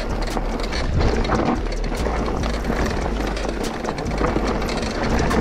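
Mountain bike riding down a rough trail: tyres rolling over rock and gravel, with many short rattling knocks from the bike. Wind rumbles on the camera microphone throughout.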